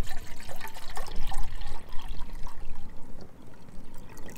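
Water pouring in a thin stream into a metal field cup, filling it.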